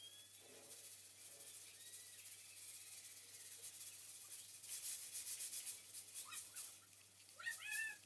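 Knife slicing through an onion held in the hand: a quick run of crisp crunches in the middle, then a cat meowing briefly near the end.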